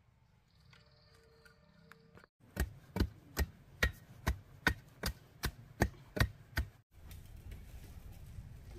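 Chopping with a blade: about eleven even, sharp strokes at roughly two and a half a second, starting a couple of seconds in and stopping a couple of seconds before the end.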